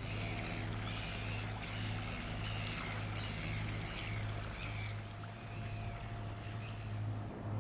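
Leopard 45 catamaran's diesel engines running steadily under way, a low even hum with water rushing along the hulls. Over it, short high calls from a flock of birds come about twice a second and stop about five seconds in.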